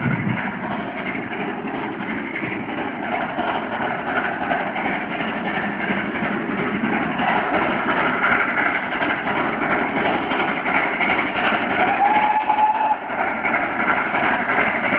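GWR Castle class four-cylinder 4-6-0 steam locomotive 5029 Nunney Castle approaching under hard working, its exhaust a steady noise that grows louder. A brief steady tone sounds about twelve seconds in.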